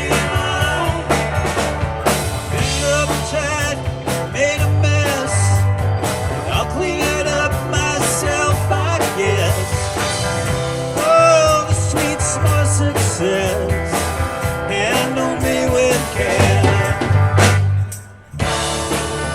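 Live rock band of electric guitars, bass, drums and keyboards playing with voices singing over a steady beat. The band stops abruptly for a moment near the end, then comes straight back in.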